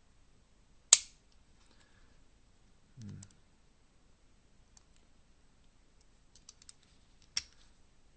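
Diana T06 air-rifle trigger unit being tripped and re-cocked by hand while its screws are adjusted: a sharp metallic snap about a second in and another near the end, with a short low thump around three seconds and a few faint ticks between.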